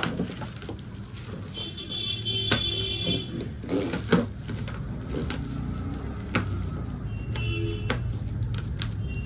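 Plastic stretch wrap and plastic packing straps being torn and pulled off a cardboard carton: crinkling, with a few sharp snaps.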